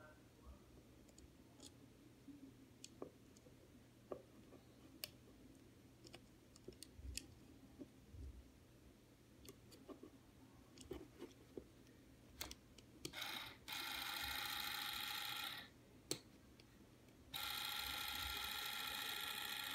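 Electric linear actuator run from a 12 V drill battery, its motor running with a steady whine as it strokes the pneumatic cylinder that swings the exhaust cutout's butterfly valve. It runs for about two seconds past the middle, stops with a click, then starts again near the end; before that only a few faint clicks.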